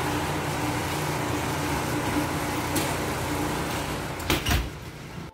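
Blodgett commercial oven running with a steady rushing hum as its metal door is swung shut, closing with a knock about four and a half seconds in.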